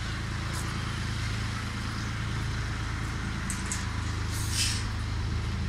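Steady low hum of an engine or motor running, unchanged throughout, with a brief hiss about four and a half seconds in.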